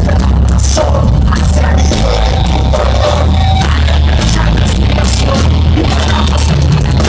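Heavy metal band playing live: distorted electric guitars, heavy bass and pounding drums with crashing cymbals, loud and steady, with little or no singing.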